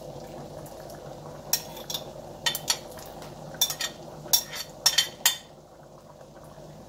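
Metal tongs clinking and scraping against a ceramic plate as pieces of cooked beef are pushed off into a pot of liquid: about ten sharp clinks spread over the first five seconds, then quieter. A steady low hum runs underneath.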